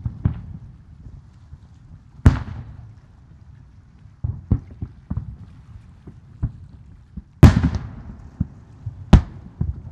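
Aerial firework shells bursting: loud booms about two seconds in, again near seven and a half seconds and just after nine seconds, each trailing off in an echo. Smaller pops and cracks fall between them over a low rumble.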